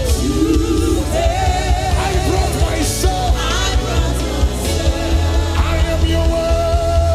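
Live gospel worship music: a band with bass, keyboard and cymbals plays while voices sing wavering, drawn-out lines without clear words.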